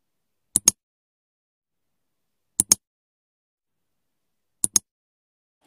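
Three quick double clicks about two seconds apart, with dead silence between: the button-press click sound effects of a like-and-subscribe animation.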